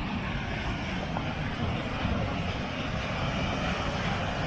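Steady rushing of a waterfall, with wind rumbling on the microphone.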